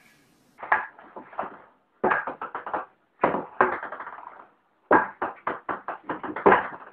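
Table-tennis ball clicking against the table and paddle in several quick runs of bounces, with short pauses between the runs.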